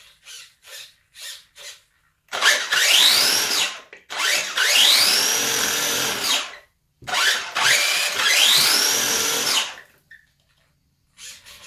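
Brushless motor and drivetrain of a Maverick Strada MT RC monster truck running on throttle. There are four short blips, then three longer bursts in which the motor whine rises in pitch and drops away. The motor drives again now that the loose ESC-to-XT60 power lead has been resoldered.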